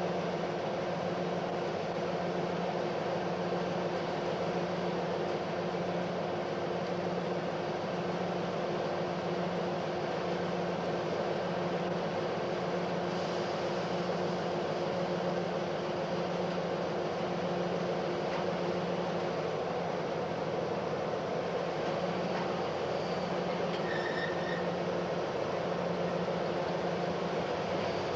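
ST44 (M62) diesel locomotive's two-stroke V12 engine idling steadily, with a slow, even pulsing hum.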